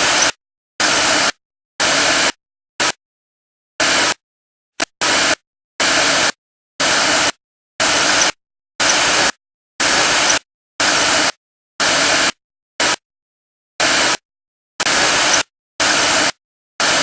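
Loud bursts of static hiss, about one a second, each cutting in and out abruptly with dead silence between.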